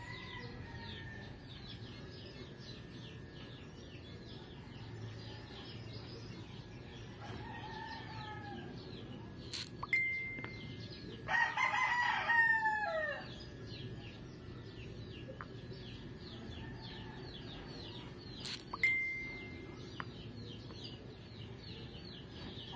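Bird calls in the background: one loud, drawn-out call of about two seconds, falling in pitch at its end, about eleven seconds in, over constant faint, rapid chirping.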